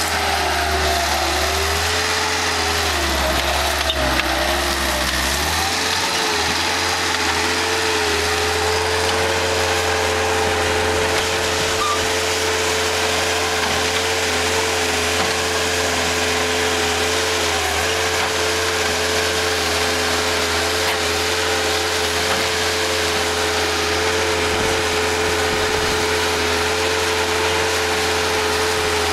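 Bobcat 753G skid-steer loader's diesel engine running hard with a steady whine. The pitch sags several times in the first six seconds as the machine takes load while digging and turning, then holds steady.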